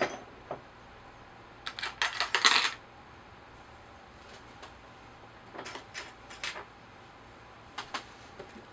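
Small metal hand tools clinking and rattling against each other as a pin punch is picked out. There is a loud burst of clinks about two seconds in, then shorter clusters of clicks later.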